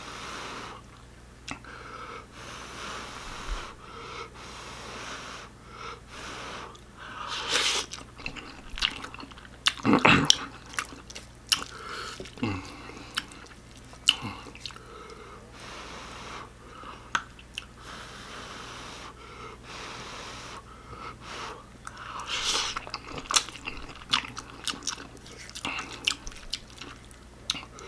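Close-up chewing and slurping of instant ramen noodles, with breathing between mouthfuls and scattered short clicks.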